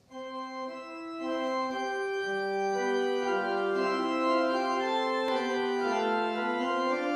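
Organ music playing slow, sustained chords, soft at first and fuller from about a second in.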